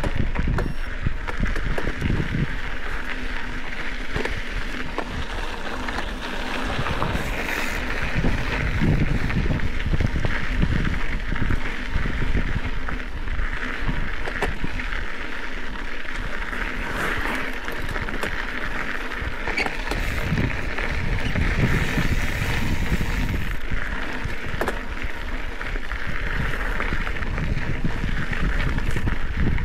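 Specialized Epic 8 Evo mountain bike rolling over dry dirt singletrack: a steady tyre-on-dirt hiss with scattered clicks and knocks from the bike. Wind gusts on the microphone come and go.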